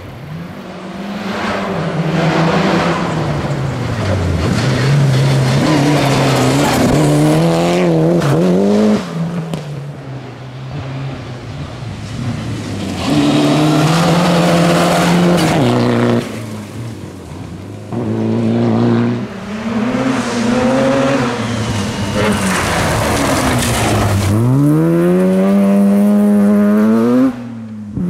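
Rally car engines at full throttle on a gravel stage, the pitch climbing through the revs and dropping back again and again as the drivers change gear and lift off, with gravel and dust hissing under the tyres. Near the end one engine revs up hard before the sound cuts off suddenly.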